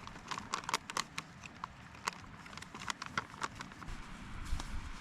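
Irregular small clicks and crinkling of something being handled, thinning out after about three and a half seconds.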